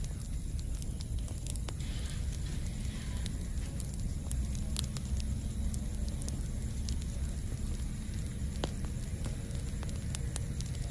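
Campfire burning: a steady low rumble of flames with scattered sharp crackles and pops from the burning wood.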